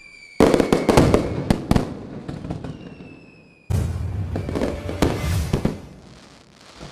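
Fireworks: a rocket whistles and bursts with a crackle about half a second in. A second whistle follows and bursts with crackling near four seconds, and each burst's crackle fades away.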